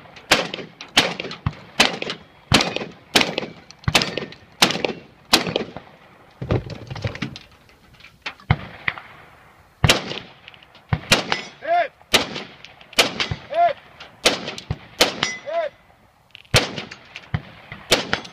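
Rapid gunfire in a 3-gun stage: about a dozen shotgun shots roughly twice a second for the first five seconds, then after a short pause a rifle fires shot after shot at steel targets. Several rifle shots are answered by the ding of a steel plate being hit.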